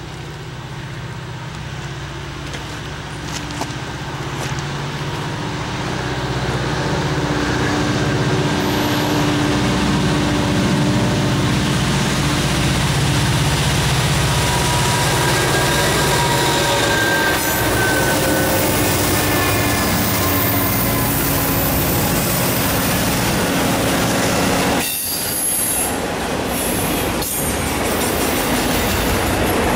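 Eastbound Norfolk Southern freight train approaching and passing, led by an SD40E, a GP38-3 and an SD70M diesel-electric locomotive. The locomotive engines' rumble grows over the first several seconds, then gives way to the steady rolling and clatter of autorack cars, with short wheel squeals on the curve.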